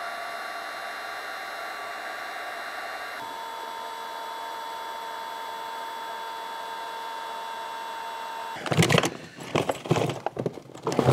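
Cordless DeWalt heat gun running steadily, its fan blowing with a high whine, shrinking heat-shrink sleeving over a cable lug; the whine drops a little in pitch about three seconds in. It stops about eight and a half seconds in, and irregular clattering and rustling follow as tools are rummaged in a plastic tool case.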